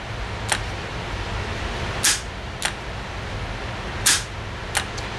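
Sharp clicks, about five in all and some in close pairs, from an outboard carburetor's electric choke solenoid plunger snapping in and out as test leads from a power pack are touched on and off. A steady low hum runs under them.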